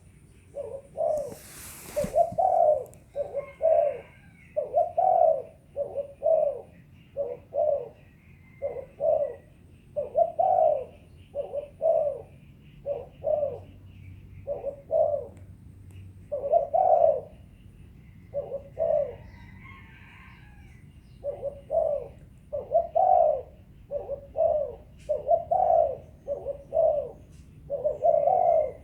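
Spotted dove cooing over and over in short phrases of two or three low coos, with faint chirps of small birds behind it and a brief noise about two seconds in.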